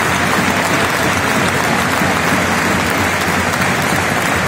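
Large stadium crowd applauding steadily, a dense, unbroken wall of clapping.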